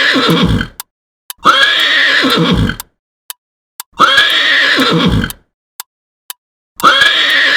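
Horse neighing: the same whinny repeated about four times, each about a second and a half long and ending in a falling pitch, with faint short clicks in the gaps between.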